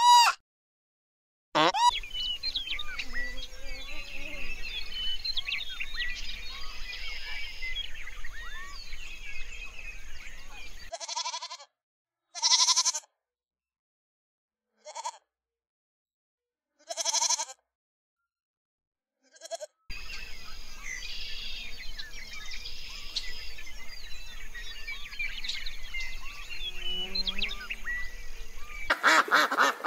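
Goats bleating: about five separate short calls a second or two apart in the middle. Before and after them there is a steady background of many small high chirps over a low hum.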